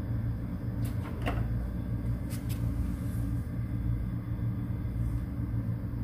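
Personal refrigerator's compressor humming steadily on being plugged in but not starting, drawing about 3 A, with a few light clicks in the first few seconds. A stalled start like this is traced to a broken start relay.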